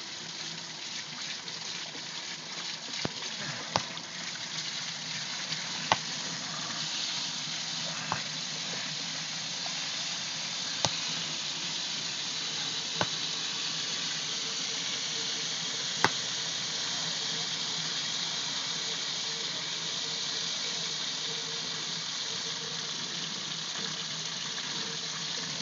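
Water hissing and spraying steadily from a live, pressurised water line under repair. A handful of sharp clicks or knocks come at irregular intervals.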